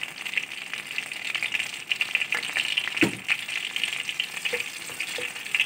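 White cumin seeds and a bay leaf sizzling in hot mustard oil as a tempering, a steady crackling sizzle. A single knock comes about three seconds in.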